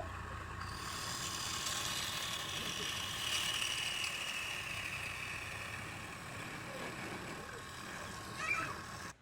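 Woodturning lathe running with a tool working the spinning wood, a steady mechanical whirring that starts and stops abruptly.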